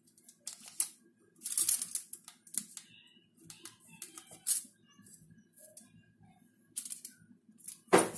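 Knife blade scraping and clicking against a clear plastic sheet on a foil-lined tray, cutting away excess set chocolate in short, irregular strokes. A faint low steady hum lies underneath.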